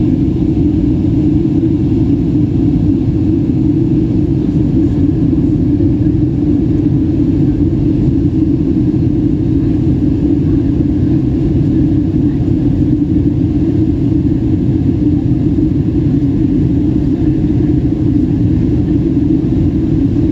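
Steady cabin drone of a Boeing 737 airliner in flight, heard from a window seat: engine and airflow noise with a strong low hum, unchanging throughout.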